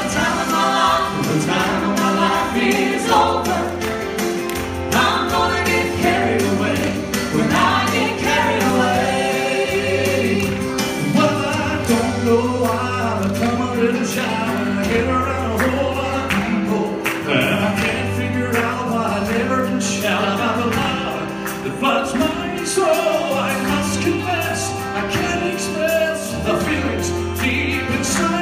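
A gospel vocal trio singing into microphones through a church PA, with a male lead voice, over an accompaniment with a steady, sustained bass line.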